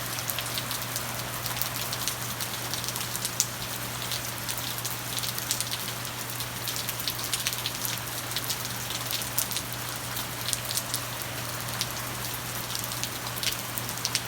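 Steady rainfall, an even hiss of rain with many separate drops ticking sharply on a surface.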